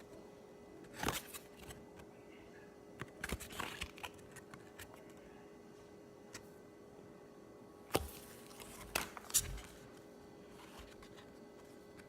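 Baseball trading cards being handled: a few scattered short rustles and taps of card stock, over a faint steady hum.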